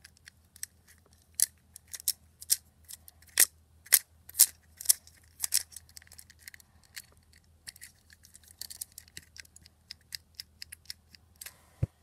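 Plastic fidget cube being fidgeted with, its buttons and switches pressed in an irregular run of sharp clicks, busiest in the first half.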